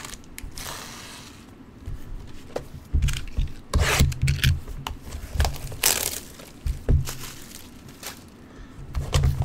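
Trading cards being handled and shuffled on a table: irregular rubbing and rustling with scattered light knocks.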